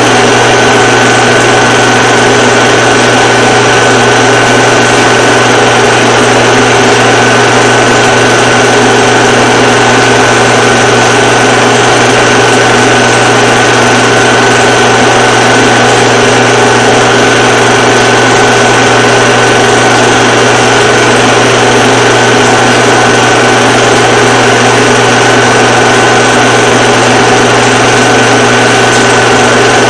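Film projector running: a loud, unchanging mechanical whir with a constant high tone over a low hum.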